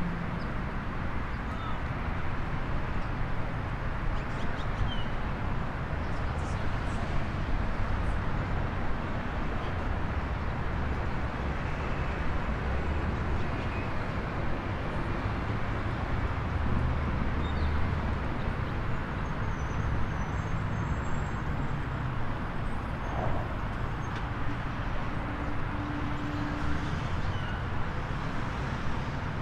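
Steady rumble of road traffic, with a few faint bird chirps now and then.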